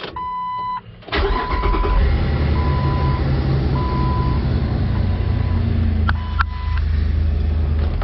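2004 Jeep Wrangler's 4.0-litre straight-six starting quickly about a second in and settling into a steady idle, now that the broken camshaft sensor and synchronizer have been replaced. A dash warning chime beeps once, then repeats about every second over the engine.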